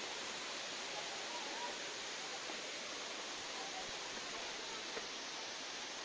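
Steady rush of a waterfall: an even hiss of falling water that holds at one level throughout.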